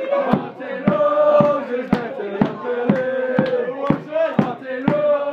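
Football supporters chanting together in long held notes, over a steady beat about twice a second.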